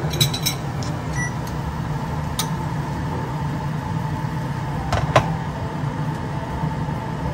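Steady low hum of kitchen appliances running, with a few light clicks of a spoon against a plate, two of them close together about five seconds in.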